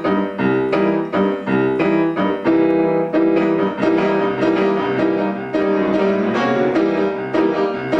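Acoustic piano playing a passage of struck chords, about two to three a second.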